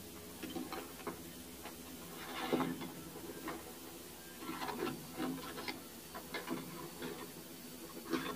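Scattered, irregular light clicks and knocks, with a brief rush of noise about two and a half seconds in.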